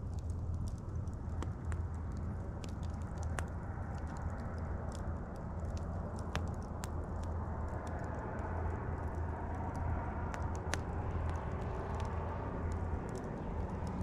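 Wood campfire burning, with irregular sharp pops and crackles over a steady low rumble.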